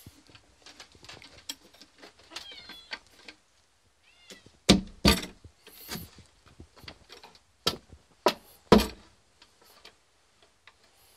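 A sticky, freshly painted window being worked open, giving several loud knocks and clunks of the frame about halfway through. Before that a cat meows a few short times.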